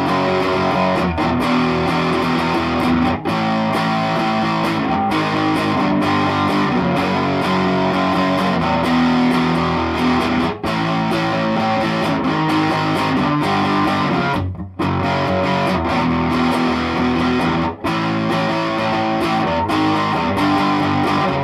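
Electric guitar played through the Ted Weber "Natalie" kit tube amplifier (four 6V6 power tubes, three 12AX7 preamp tubes), driven hard with the master volume up for a growling, overdriven tone. Sustained chords ring on, cut by a few sudden short breaks.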